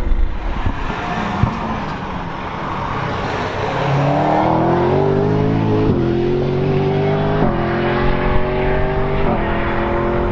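McLaren 720S GT3 EVO race car's twin-turbo V8 accelerating hard away, its note climbing through the revs and dropping abruptly at three quick upshifts, about halfway through, then at roughly two-second intervals.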